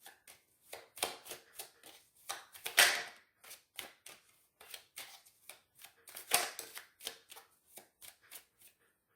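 Tarot cards being shuffled and handled by hand: a steady run of short, irregular card slaps and flicks, with a couple of louder ones.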